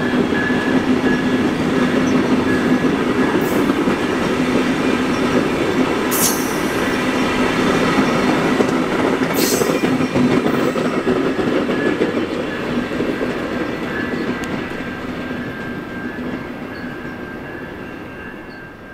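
Siemens Venture passenger cars of a VIA Rail train rolling past: a steady rumble of wheels on rail with a humming tone and a few sharp clicks. From about twelve seconds in, the sound fades steadily as the train draws away.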